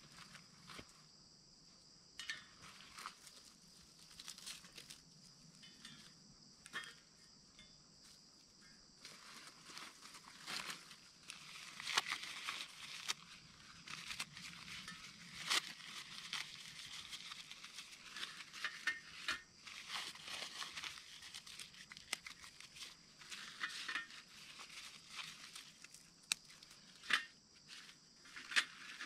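Crinkling and tearing of a wrapper being handled and opened by hand, with scattered small clicks and taps of camp cooking gear. It is sparse for the first few seconds and busier from about nine seconds in, over a steady high-pitched hum.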